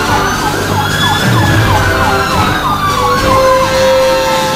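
Fire engine sirens sounding together: a slow wail falling steadily in pitch, overlaid with a fast yelp of about three to four short falling sweeps a second.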